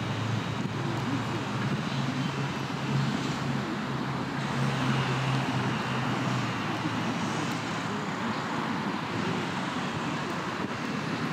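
Steady background noise, a continuous rumble and hiss, with a low steady hum that stops about six and a half seconds in.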